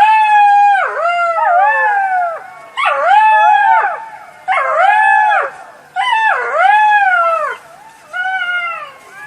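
Jackal howling: five bouts of wavering wails, each rising quickly and sliding down in pitch, with short pauses between them.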